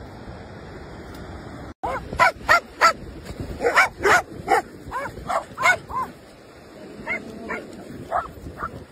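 A dog barking in play: about nine sharp barks in quick succession starting about two seconds in, then four softer barks near the end. Before the barking, a steady hiss of wind and surf.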